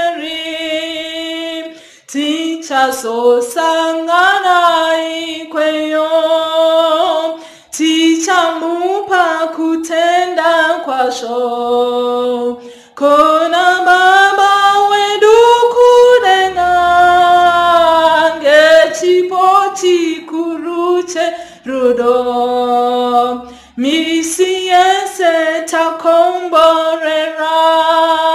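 A woman singing a Shona hymn solo and unaccompanied, in long phrases with brief pauses between them.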